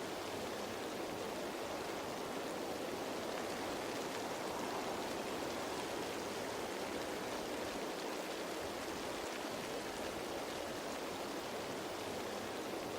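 Steady rain falling on leaves, an even patter with faint scattered drop ticks.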